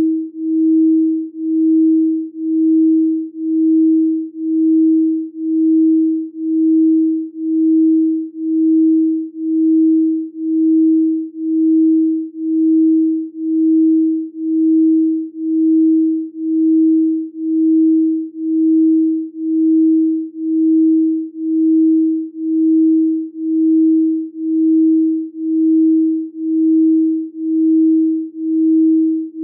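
A single steady electronic sine tone of moderate pitch, swelling and fading in volume about once a second, played as a chakra-balancing healing frequency.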